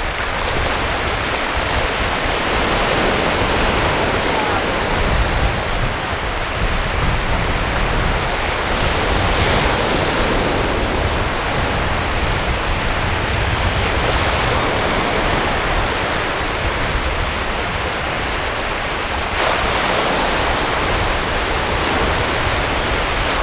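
Small waves breaking and washing up the shore: a steady, loud hiss of surf.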